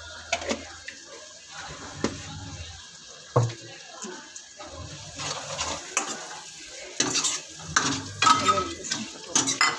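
Steel ladle stirring and scraping a frying tomato-onion masala in a kadhai, with clinks of metal on the pan over the masala's sizzle. The clinks and scrapes come thicker and louder in the second half.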